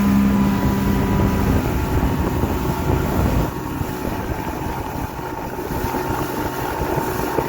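Motorboat engine running under way while towing a tube, with rushing water and wind. The steady engine hum fades about a second and a half in, and the whole sound drops a little about halfway through.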